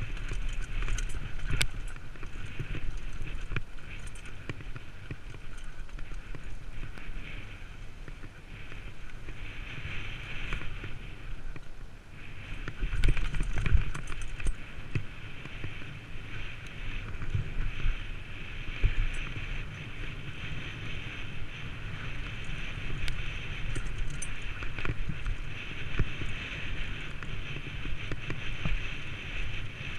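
Downhill mountain bike running down a rough dirt and gravel trail: tyres rolling over stones and the bike rattling with frequent knocks, and wind on the camera microphone. The knocks come loudest about thirteen seconds in.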